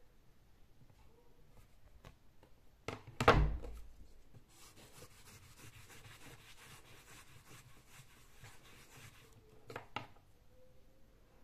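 A plastic-framed whiteboard set down on a table with one loud thud about three seconds in, followed by several seconds of soft rubbing from handling on the tabletop and a lighter knock near the end.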